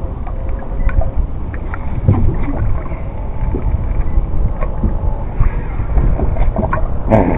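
Wind rumbling on the microphone and water noise around a small boat on open sea, with scattered light clicks and a brief louder rustle near the end.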